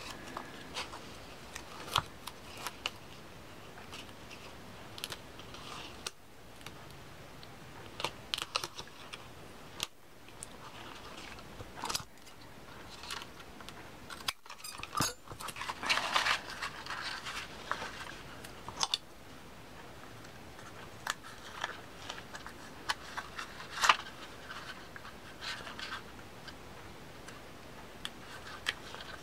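Paper and cardstock being handled and folded into accordion pleats: scattered light rustles and clicks, with scissors snipping through the folded paper, busiest near the middle.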